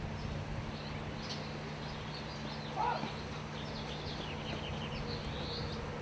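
Small birds chirping in a loose series of short, high notes, over a steady low hum.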